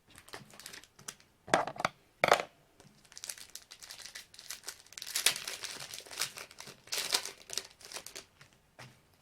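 Panini Brilliance trading-card pack wrapper being handled: a few sharp crackles, then a few seconds of dense crinkling as it is torn and rubbed open.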